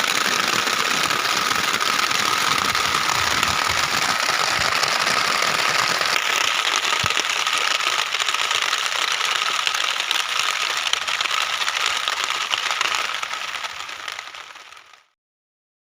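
Heavy rain falling steadily, a dense patter of drops, with a steady high-pitched tone running through it. The sound fades out about fourteen seconds in.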